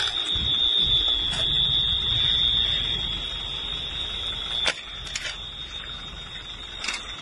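A steady, high-pitched electronic alarm tone sounding without a break over a low rumble, with three sharp clicks in the second half.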